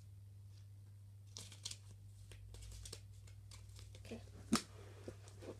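Playing cards being handled and shuffled by hand: scattered soft rustles and flicks, with one sharp click about four and a half seconds in.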